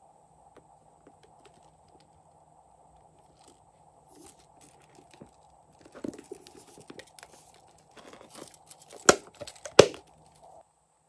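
Hands handling a hard heart-shaped handbag: scattered light taps and rustles, then two sharp clicks about nine and ten seconds in. A faint steady hum runs underneath and stops near the end.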